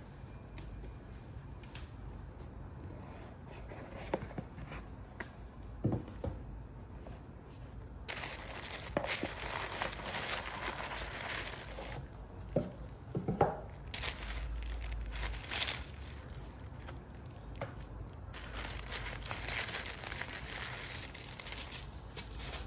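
Paper packaging being unpacked by hand: a few light taps and knocks of the box at first, then long stretches of crinkling and rustling as a white paper gift bag and its wrapping are handled.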